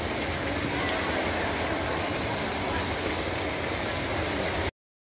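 Water splashing steadily as a tiered fountain cascades into its pool, cutting off abruptly a little before the end.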